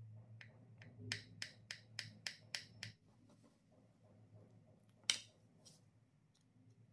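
A quick, regular run of about seven sharp taps, roughly three to four a second, then one louder tap about five seconds in, over a low steady hum.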